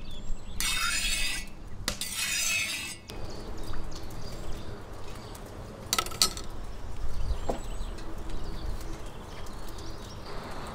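Hot oil sizzling in a cast-iron kazan in two short hissing bursts during the first three seconds. About six seconds in, a metal slotted spoon clinks once against a glass bowl.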